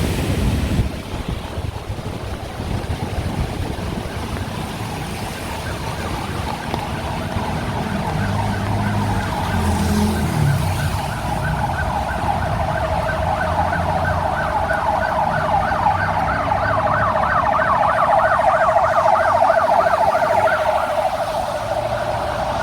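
Ambulance siren sounding a fast, regular warble. It comes in about six seconds in and grows louder as it nears, over the low hum of stalled traffic engines.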